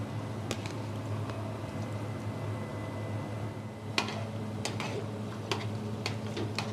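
A metal spoon clicking and scraping against a large aluminium pot as soaked sella rice is stirred into the lamb sauce, with a few light clicks and one sharper knock about four seconds in, over a steady low hum.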